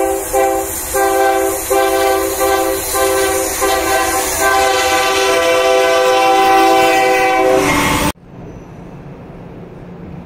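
Multi-tone train air horn sounding a string of about six short blasts, then one long blast of about three seconds, cut off abruptly about eight seconds in. After the cut there is quieter station ambience with a steady low hum.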